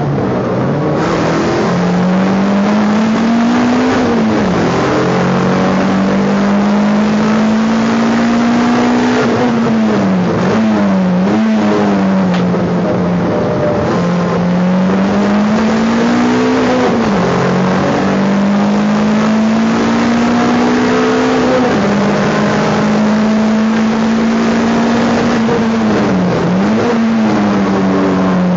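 Race car engine heard from inside its stripped, roll-caged cabin under hard driving. The engine note climbs for several seconds at a time, then dips and swings sharply back up every five or six seconds as the driver lifts and changes gear through the corners.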